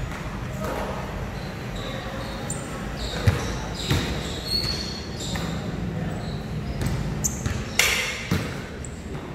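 A basketball bouncing on a hard concrete court during shooting practice: a handful of separate sharp knocks, loudest about three and eight seconds in.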